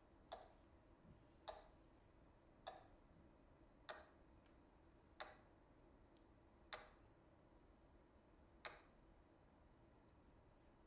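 A wind-up metronome ticking slowly, seven faint ticks about a second apart at first, then spreading out, the last gap nearly two seconds, until it stops about nine seconds in as it runs down.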